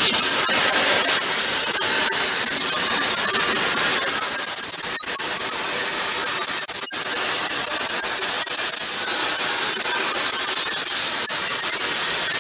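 The plasma torch of a DAMA GMDC-3100 CNC cutting machine cutting through steel plate: a steady, high-pitched hiss.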